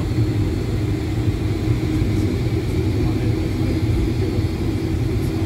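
Cabin noise of a Boeing 757-300 taxiing after landing: a steady rumble with a low hum from its Rolls-Royce engines at idle, heard through the cabin wall over the wing.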